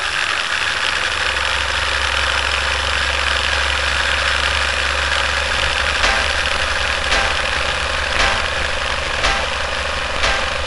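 Film projector sound effect: a steady mechanical running noise with a low hum. From about halfway through, a click comes roughly once a second, in step with the film-leader countdown.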